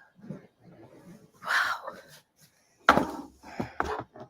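Wooden closet parts being knocked and scraped while it is taken apart: scattered light knocks, a short scrape about a second and a half in, then a loud bang near the three-second mark followed by a rattle of smaller knocks.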